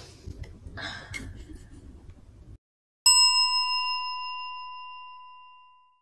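A short sniff near the start. About three seconds in, a single bell-like ding sound effect strikes and rings out, fading away over about three seconds.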